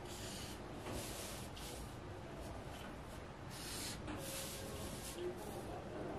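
Marker pen drawn along a clear plastic ruler on pattern paper: several short, scratchy strokes, each about half a second long.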